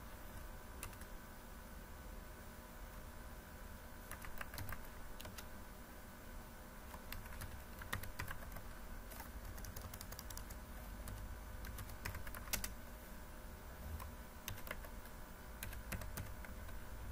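Computer keyboard being typed on: irregular sharp keystroke clicks, sparse at first and more frequent from about four seconds in, over a steady low hum.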